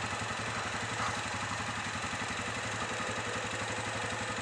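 ATV (quad bike) engine idling steadily, an even, fast low pulsing.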